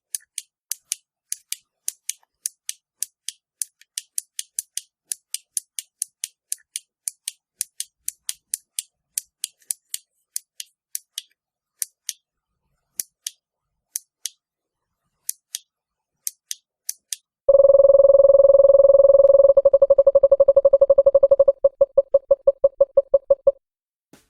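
Small push-button switch clicking over and over, two or three clicks a second. Then a loud, steady electronic beep tone sounds for about six seconds, breaking into rapid beeping before it cuts off.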